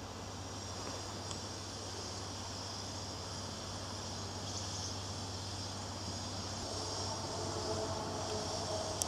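Insects chirping steadily in a high register over a low hum. About two-thirds in, the whine of approaching electric multiple units, an ÖBB Talent and a Stadler Flirt, comes up beneath them.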